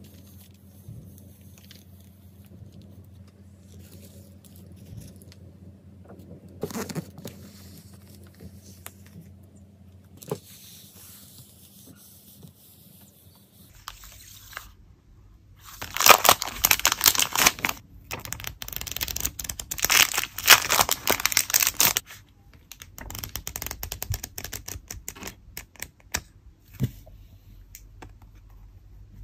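Clear plastic packaging crinkling and crackling as it is handled and opened. It is loudest in a dense stretch of about six seconds past the middle, with quieter handling sounds before it and lighter crinkles after.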